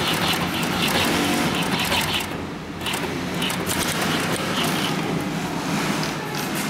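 Twin-needle post-bed industrial sewing machine running, stitching thick thread through heavy leather, with a brief pause about two and a half seconds in.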